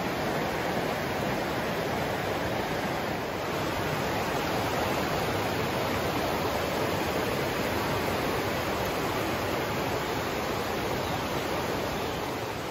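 Steady rush of river water pouring over a low dam and running through rocky shoals.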